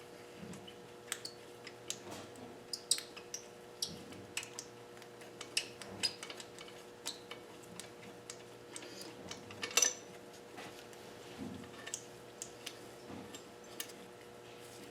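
Irregular metallic clicks and clinks of hand tools and loose bolts against engine parts, with a louder clank about ten seconds in, over a steady faint hum.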